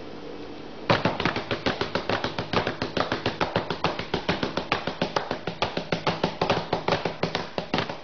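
Hands knocking rapidly and evenly on a hard surface, about six knocks a second without a break, starting about a second in.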